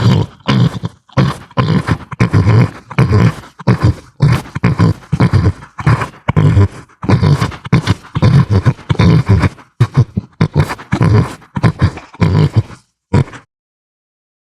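Sound-designed monster grunts: a long run of short, deep, separate grunts, about one or two a second, that stops about 13 seconds in.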